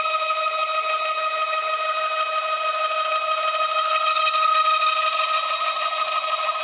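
Stepper motors driving a CNC router table's axis, a steady whine made of several fixed pitches that stays level throughout.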